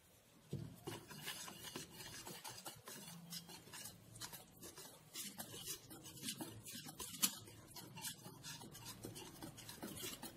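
Hand whisk stirring flour, sugar, ground sesame, milk and ghee into a thick cake batter in a bowl: soft, uneven scraping and rubbing strokes with light taps against the bowl, one sharper knock about seven seconds in.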